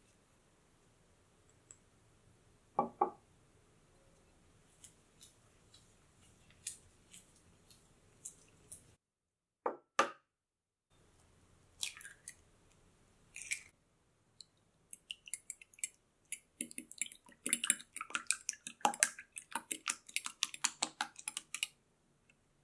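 A spatula softly scrapes and taps butter in a glass bowl. Then an egg is knocked sharply twice, cracked open and dropped into a small glass bowl. The egg is then beaten briskly for several seconds, a fast run of clicks of the utensil against the glass.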